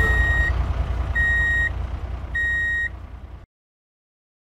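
Reversing alarm beeping three times, evenly spaced, each beep about half a second long, over a low engine-like rumble. Both cut off suddenly about three and a half seconds in.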